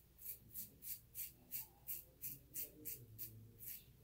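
RazoRock Blackhawk v2 razor scraping through lathered stubble on the neck in short, quick strokes, about three a second.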